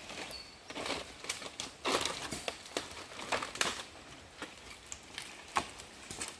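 Footsteps crunching and crackling through dry fallen nipah palm fronds on mud, in irregular snaps and rustles.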